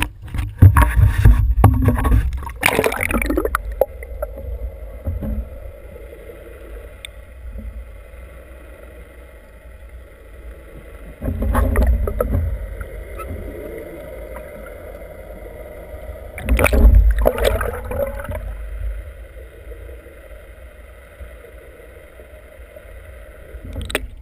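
Sea water heard through a GoPro HERO2's waterproof housing. It splashes and rumbles heavily for the first few seconds as the camera goes under, then settles into a muffled underwater wash with a faint steady hum. Water rushes loudly past the housing twice more, about eleven seconds in and again about seventeen seconds in.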